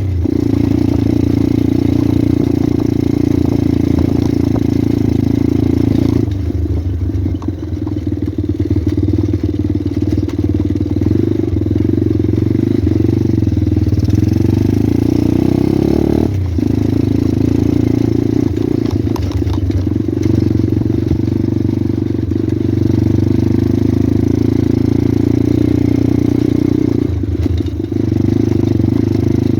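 Pit bike's small single-cylinder engine running under way, with the engine note easing off for several seconds about a fifth of the way in and briefly near the end before picking up again.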